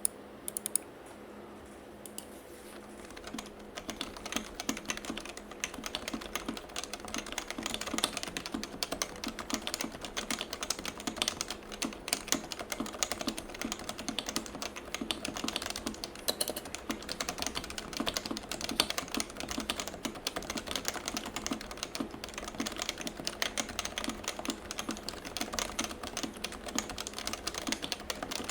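Typing on the alpha keys of a custom Topre keyboard: Sho SRX polycarbonate case with a stainless steel plate, lubed Realforce sliders and springs, stock 55 g domes, and Realforce 103UB keycaps. A few single keystrokes come in the first second, then steady, continuous typing starts about three seconds in.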